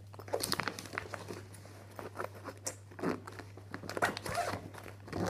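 Clear plastic bag crinkling and rustling as it is handled and opened, in irregular crackles.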